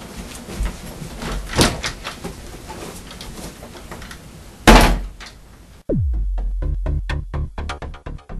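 A thump about a second and a half in, then a door slamming loudly just past halfway. About two seconds later, electronic dance music with a steady beat cuts in abruptly.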